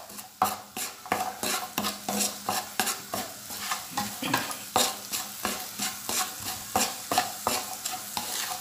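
Wooden spatula stirring and scraping sliced onions and curry leaves around a nonstick frying pan, in quick strokes about two or three a second, over the sizzle of the onions sautéing in oil.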